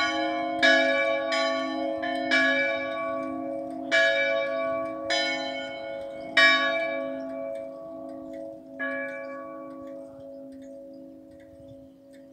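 Two swinging church bells, tuned to D4 and F4, ringing a festive peal as they slow to a stop. The strokes come at first about once a second, then further apart, with the last faint stroke about nine seconds in, and the ringing fades away.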